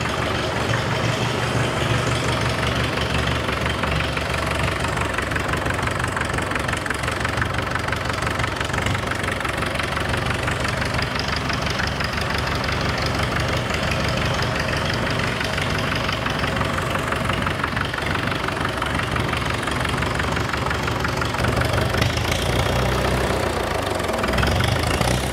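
1942 International TD-6 dozer's four-cylinder gas-start diesel engine running steadily in diesel mode, just switched over from gasoline, with an even knock through its firing.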